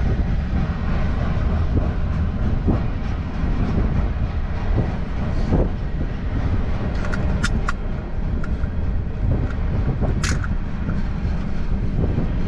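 Freight train's tank cars and covered hopper cars rolling past at a grade crossing: a steady low rumble with clacking of wheels over the rail joints. Several brief high squeals come partway through.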